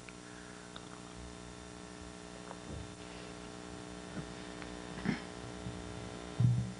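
Steady low electrical mains hum with several faint overtones, and a few soft, brief knocks, the clearest about five seconds in and just before the end.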